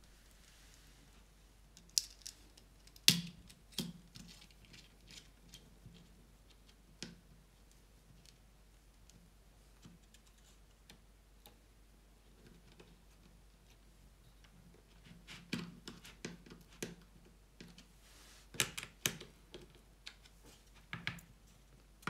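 Scattered sharp clicks and taps of a screwdriver and small metal parts handled against a plastic case on a workbench, as wire terminals are screwed down. The loudest click comes about three seconds in, with another cluster of clicks in the last third.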